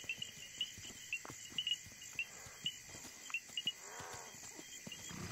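Crickets chirping steadily through a night soundscape, with scattered soft knocks and a short animal call about four seconds in.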